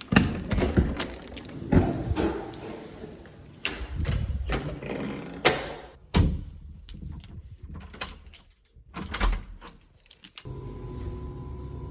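Irregular knocks, clunks and rattles of objects being handled and set down. About ten and a half seconds in they give way to a steady hum.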